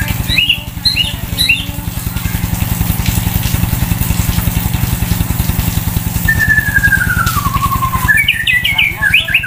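White-rumped shama singing: a few quick whistled notes at the start, then a long whistle falling in steps from about six seconds in, and a rapid burst of sharp varied notes near the end. A small engine runs steadily underneath with a low, even throb.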